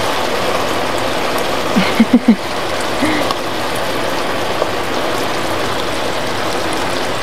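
Chicken and mushrooms in soy and oyster sauce sizzling and bubbling in a stainless frying pan, a steady hiss as the soaked hair vegetable is stirred in. A few short squeaks about two seconds in.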